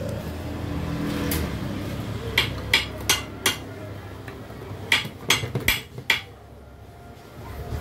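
Sharp metal clicks and knocks, about nine in two quick clusters, as a crankshaft with its bearings is worked down and seated into a Yamaha 40 hp two-stroke outboard's crankcase.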